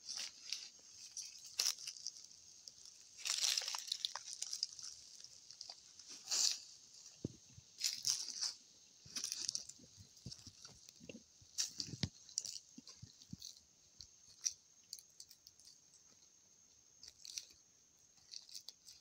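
Irregular crunching and rustling of footsteps through dry brush, with a thin steady high tone behind it.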